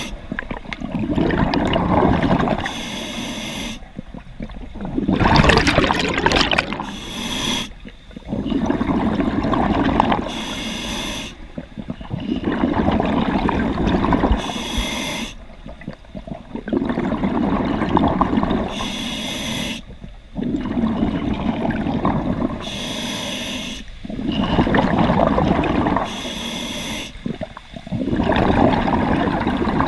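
Scuba diver breathing through an open-circuit regulator: a short hiss as each breath is drawn, then a longer rush of exhaled bubbles, repeating about every four seconds.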